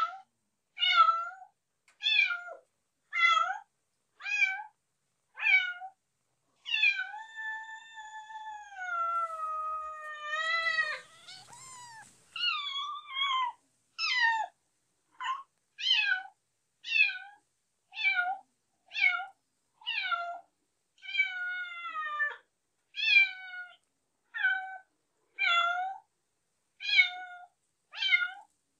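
A cat meowing over and over, roughly once a second, with one long drawn-out meow lasting several seconds about seven seconds in.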